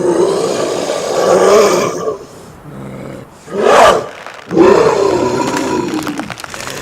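Designed female werewolf creature roars: a long roar, a short sharper cry around the middle, then a second long roar.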